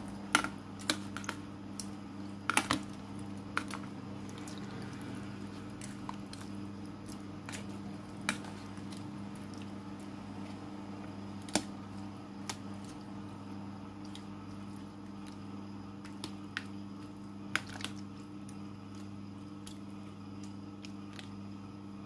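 Metal tongs tossing raw chicken wings in marinade in a plastic bowl: wet squishing and sharp clicks of the tongs, frequent in the first few seconds and then only now and then. A steady low hum runs underneath.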